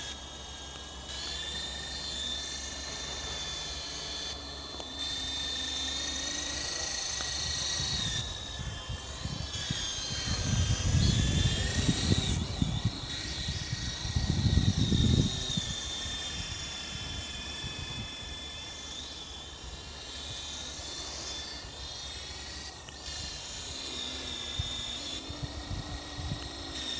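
Small electric radio-controlled helicopter (Green Machines F45) flying, its motor and rotors giving a steady high whine that rises and falls in pitch as the throttle changes. Two spells of low rumble on the microphone come near the middle.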